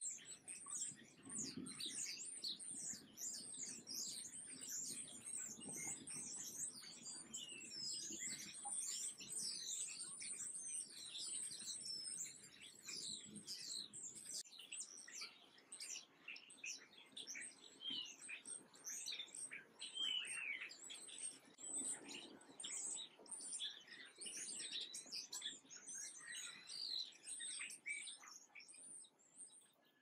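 Small songbirds chirping and twittering in a dense, continuous chorus of quick high-pitched notes, with a faint low hum underneath; it fades out near the end.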